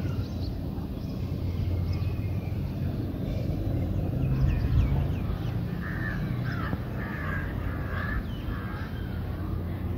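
Low, steady rumble of a formation of helicopters flying past at a distance. Birds call several times over it in the second half, with short chirps and rough, caw-like calls.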